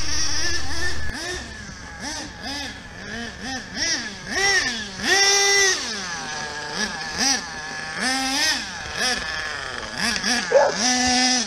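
HPI Savage 25 nitro RC monster truck's small glow-fuel engine revving up and down again and again as it is driven, with longer held high revs about five and eight seconds in. A low rumble fills the first second.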